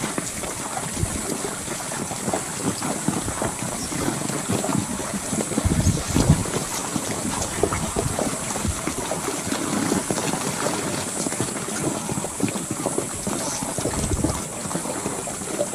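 Wind buffeting the microphone in uneven gusts over a steady outdoor hiss, with the strongest gusts about six seconds in and again near the end.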